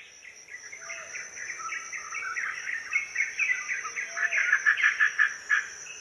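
Jungle ambience: many birds chirping and calling over a steady, high insect buzz, fading in from silence and growing louder.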